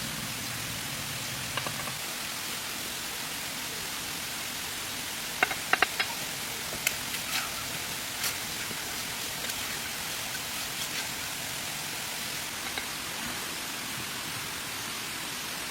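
Steady even hiss, with a quick cluster of sharp knocks about five and a half seconds in and a few fainter ones scattered after.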